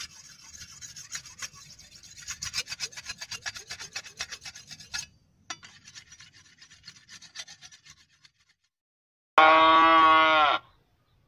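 A rapid run of rasping, scraping strokes that grows louder over about five seconds, then a few fainter ones. Near the end a goat bleats once, loudly, for about a second, the call falling in pitch as it ends.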